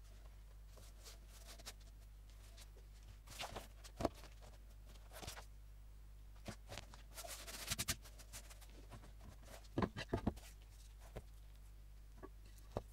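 Faint handling of a handmade hardcover sketchbook: paper and cover rustling, with scattered light taps and a cluster of sharper knocks about ten seconds in as the book meets the cutting mat. A low steady hum sits underneath.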